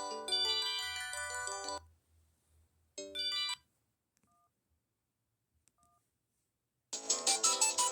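Ringtones playing from a Samsung SGH-A707 phone's speaker. A melodic ringtone stops about two seconds in, and a brief snippet of it sounds about a second later. After a few seconds of near silence with two faint short beeps, a louder, busier ringtone with a fast beat starts near the end.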